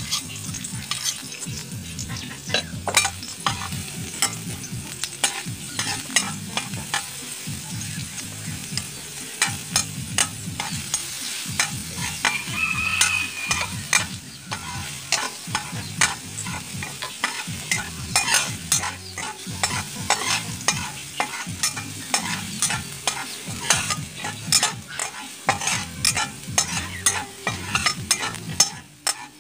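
Chopped food frying in oil in a wok with a steady sizzle, while a flat metal spatula scrapes and clicks against the pan as it is stirred.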